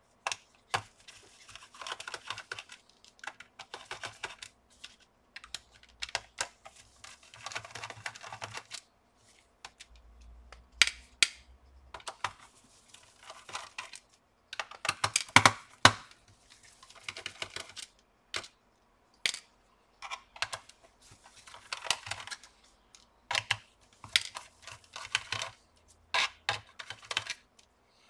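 Screwdriver backing out the small screws from the plastic underside of an HP Pavilion dv6000 laptop: short stretches of scratchy turning, broken by irregular sharp clicks and taps.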